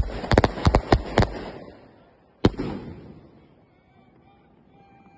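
Aerial fireworks bursting overhead: a quick string of about seven sharp bangs in the first second and a half, then a single bang about two and a half seconds in, each trailing off in a rumbling echo.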